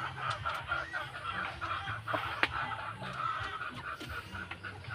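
A small flock of Rhode Island Red and broiler chickens clucking and chattering continuously in short, rapid notes. There is a sharp click about two and a half seconds in.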